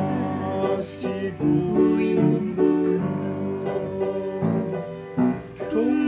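Upright piano playing a trot song: a melody over chords, with notes changing throughout and a short dip in loudness a little after five seconds in.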